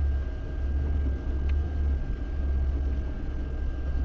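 Lada Niva Bronto heard from inside the cabin while driving slowly off-road: a steady low engine and drivetrain rumble that rises and falls a little, with a faint steady high whine over it.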